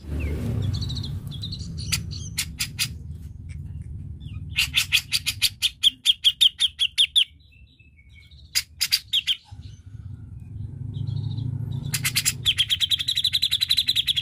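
Grey-cheeked bulbul (cucak jenggot) calling in rapid chattering trills of sharp, evenly repeated notes: two long runs, one near the middle and one at the end, with short bursts between, over a steady low rumble.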